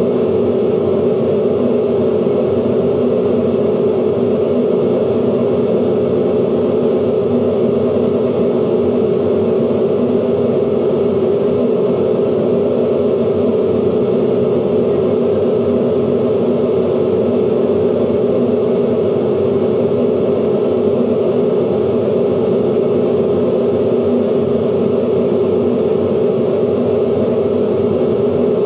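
Live experimental noise music made from the magnetic soundtracks of 16mm film projectors, altered by light sensors on the projection screen: a loud, steady, dense drone of noise, heaviest in the low-middle range.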